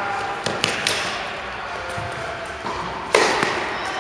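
Tennis ball struck by rackets and bouncing on the court during a rally, each hit echoing through a large indoor tennis hall. A few quicker knocks come about half a second to a second in, and the loudest, sharpest racket hit about three seconds in.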